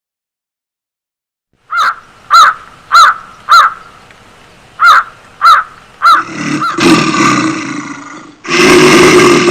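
An animal calling: a run of eight short, rising-and-falling calls about two a second, then two long, harsh, louder calls.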